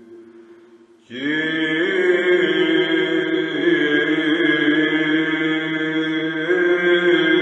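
Byzantine chant in the first mode: a sung phrase fades out, and about a second in a new phrase begins loudly. The melody holds and bends through long notes over a steady low drone (ison).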